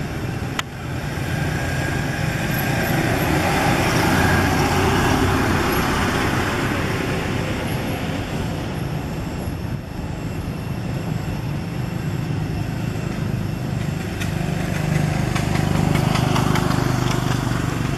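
Road traffic passing steadily, swelling louder a few seconds in and again near the end as vehicles go by.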